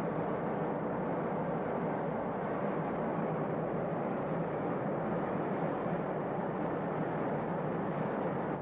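Steady jet-engine drone of B-52 bombers in flight, an even, unchanging rumble.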